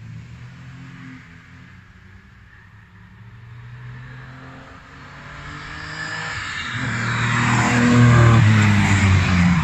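A classic race car's engine approaching under acceleration and passing close by. The engine note rises in pitch and grows louder, loudest as the car goes past about eight seconds in.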